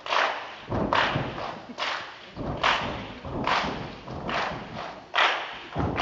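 Children's step team stepping in unison: stomps and hand claps landing together about once a second, each hit echoing briefly in the hall.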